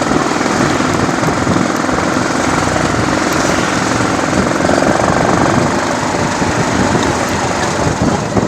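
Motorcycle engine running steadily while riding, with a fast, even pulse under a loud, steady rushing noise.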